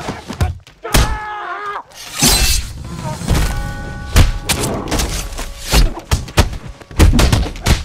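Film fight sound effects: a fast run of sharp punch and kick impacts, coming thickest in the second half, with music underneath.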